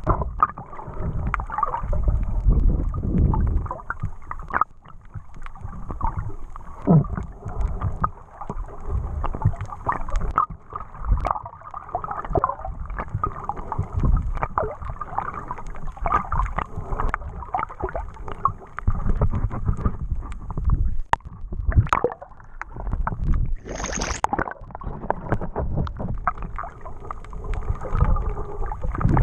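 Muffled underwater sound picked up by an action camera in a waterproof housing as a snorkeler swims over a reef: low rumbling water movement with many small clicks and knocks. There is a brief higher hiss late on.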